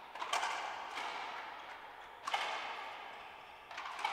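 Racquetball rally: the ball is struck by racquets and smacks off the walls and floor of the court. There are several sharp hits, the loudest about two seconds apart, each ringing out with the court's echo.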